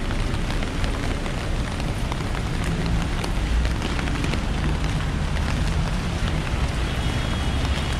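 Steady rain falling on a wet city street, a dense hiss full of small drop ticks, with a low traffic rumble underneath.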